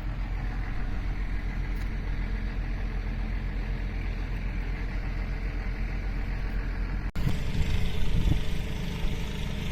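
A steady low rumble like an idling engine. About seven seconds in it cuts out abruptly and resumes louder and brighter.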